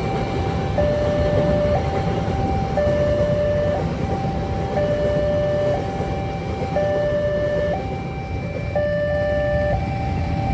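Railway level-crossing alarm sounding an electronic two-tone signal, a higher and a lower tone alternating about once a second, warning that a train is coming. Road traffic rumbles steadily beneath it.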